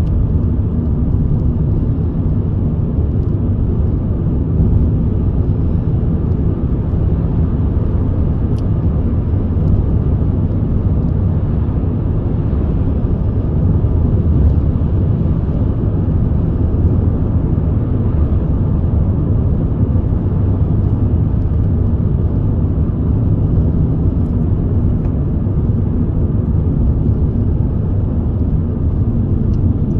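Steady low rumble of road and engine noise inside a moving car's cabin, with tyres running on the road.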